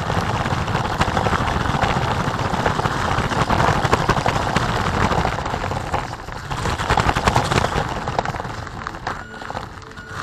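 Homemade RC car running over a rough concrete lane, picked up by its onboard camera: a loud, dense rattling crackle of tyres and chassis on the ground, fading near the end.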